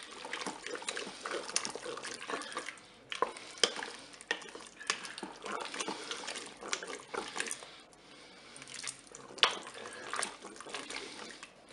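Wooden spoon stirring a thick stew of potatoes, mushrooms and duck paupiettes in a Cookeo multicooker's inner pot: wet stirring with irregular knocks and scrapes of the spoon against the pot, easing off briefly about eight seconds in.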